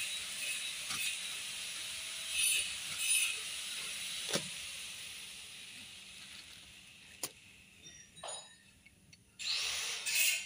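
Clear plastic bag rustling and crinkling as a new plastic timing chain guide is unwrapped and handled, with a single sharp click a little after the middle and a louder burst of rustling near the end.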